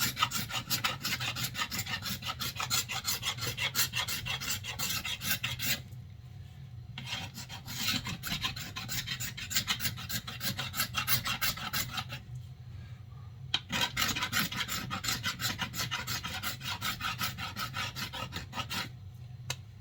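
A knife blade scraping sticky duct-tape residue off a wooden axe handle in quick repeated strokes, in three bouts with short pauses between them, over a steady low hum.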